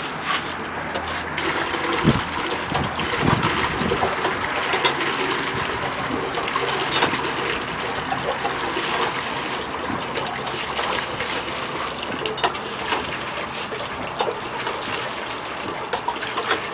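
Hand-operated well pump being worked, water gushing steadily through its outlet pipe into a plastic bucket, with occasional short knocks.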